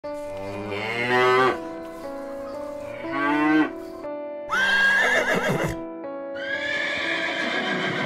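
Cattle mooing twice, then a horse whinnying with a high, wavering pitch that falls away, over background music.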